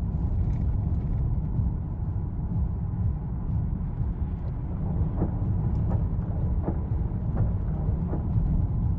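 Heavy, steady low rumble of strong wind buffeting the microphone outdoors, with a few faint short sounds between about five and eight seconds in.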